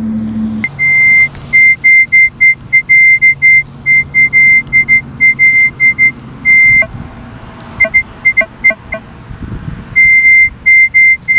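Minelab E-Trac metal detector sounding a high-pitched tone in rapid, irregular on-off beeps as the coil is swept, with a few shorter, lower chirps partway through. This is false signalling from a failing search coil.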